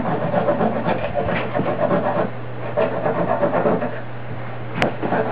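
Wooden peg being shaved into a round tenon against the cutter of a tenon-making jig: uneven rhythmic scraping with short lulls, over a steady low hum. A sharp click comes near the end.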